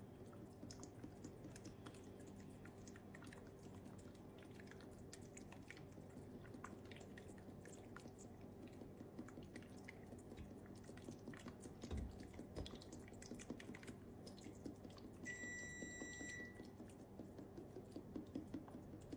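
Olive oil poured in a thin stream from a bottle onto a pot of peeled garlic cloves: faint trickling with many small ticks and drips over a low steady hum. A low thump comes about twelve seconds in, and a high beep lasting about a second follows a few seconds later.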